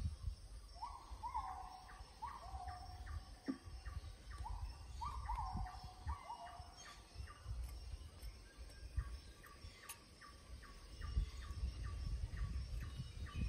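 Birds calling: a string of short notes that rise and then level off, in the first half, over a steady run of quick high pips, about three a second. A low rumble runs underneath.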